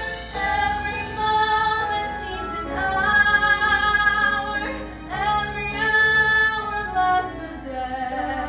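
Music: a female voice singing long held notes over instrumental accompaniment.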